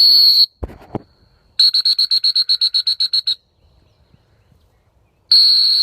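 Dog-training whistle blown hard: a long single blast, then a rapid trill of short toots about ten a second, then another long blast near the end. The long blast is the stop-and-sit whistle used to halt a retriever running a blind before giving it a cast. A brief low thump just under a second in.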